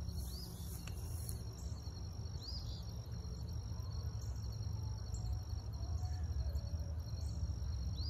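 Insects, crickets, keeping up a steady high-pitched trill over a low outdoor rumble, with a few faint short chirps.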